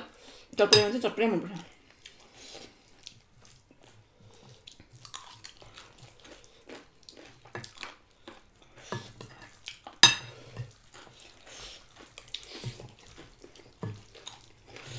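Close-up eating sounds of pani puri: crisp shells crunching, chewing and wet mouth noises, with scattered clicks and clinks of utensils on dishes. A short voiced sound comes about a second in.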